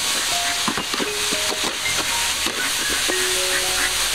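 Hot oil sizzling loudly with a steady steam hiss as broccoli goes into a wok of frying chicken, with a few clicks of the spatula being stirred through.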